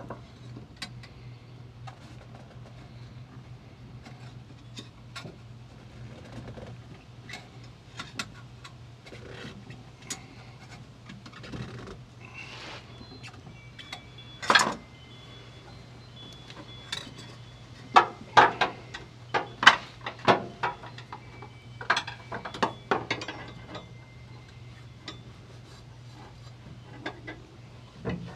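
Hand work on a fuel line and its fittings: scattered clicks, taps and clatter of small parts and tools being handled. A sharp knock comes about halfway through, then a busier run of knocks. A steady low hum runs underneath.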